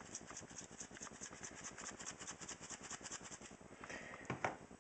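Faint, fast rattle of dried Italian seasoning being shaken from its container, about six or seven shakes a second, stopping about three and a half seconds in, then a couple of light clicks.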